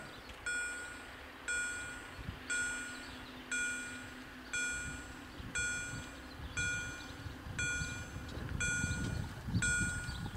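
Level-crossing warning bell striking about once a second, each stroke ringing out briefly, sounding while the barriers close for an approaching train. A low steady hum from the barrier drives runs for a few seconds as the booms come down.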